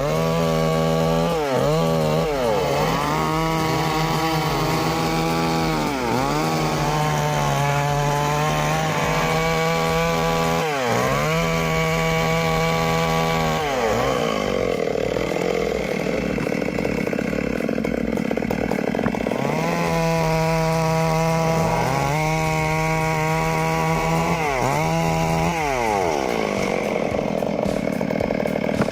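Chainsaw running at high revs, its engine pitch dropping sharply and climbing back about eight times as the throttle is let off and squeezed again.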